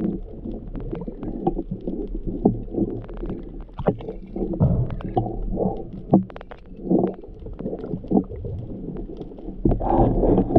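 Muffled underwater sound of water swirling and gurgling, heard through a sealed action-camera housing, with a steady low rumble and irregular short knocks and clicks.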